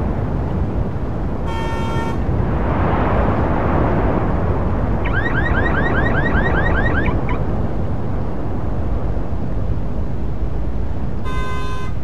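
Busy city avenue traffic: a steady rumble of engines and tyres. A short car horn toot comes about a second and a half in, and another horn honk near the end. In the middle, a car alarm chirps rapidly for about two seconds, its rising chirps repeating about five times a second.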